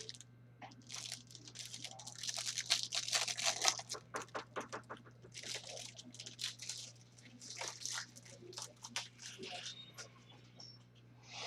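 Trading cards and their packaging being handled: bursts of crinkling, rustling and small clicks, the busiest stretch between about one and four seconds in, with two shorter bursts later.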